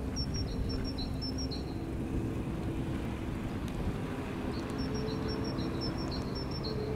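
Steady low background rumble, with a bird repeating a rapid, high two-note chirp in two runs: one near the start and one from about two-thirds of the way in.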